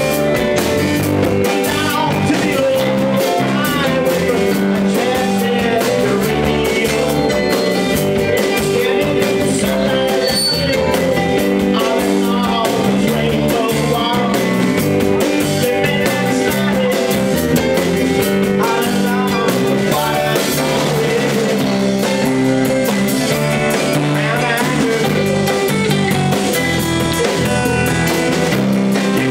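Live band playing blues-rock, with a man singing over electric guitar, bass guitar, drum kit and Hammond organ.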